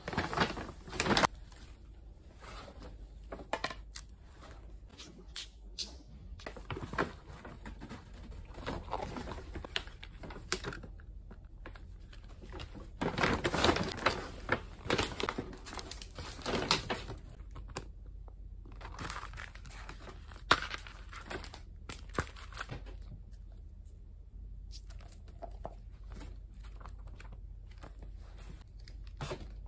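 Rustling and crinkling of a kraft paper shopping bag and packaged stationery being taken out and handled, with small taps and clicks. The handling comes in irregular bursts, busiest about halfway through.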